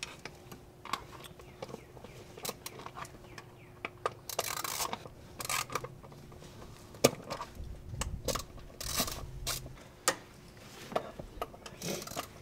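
Hand work on a car engine: irregular rubs, scrapes and clicks of hands, a ratchet and parts around the throttle body, with a sharp click about seven seconds in and a low rumble a little after.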